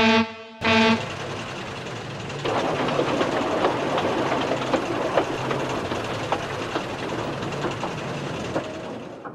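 Two short toots of a steam locomotive whistle, then a steam train rolling along with its wheels clicking over the rail joints, fading near the end.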